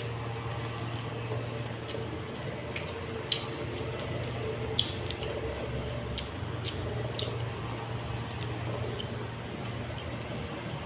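Close-miked wet chewing and mouth sounds of someone eating raw vegetables, with scattered sharp crunches and smacks at irregular intervals over a steady low hum.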